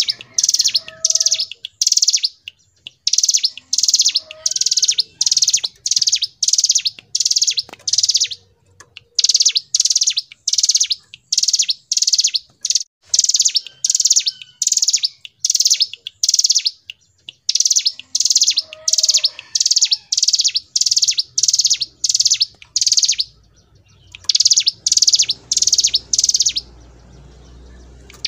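Hill prinia (ciblek gunung) singing at length: a fast run of short, high, repeated notes, about two a second, broken by a few brief pauses.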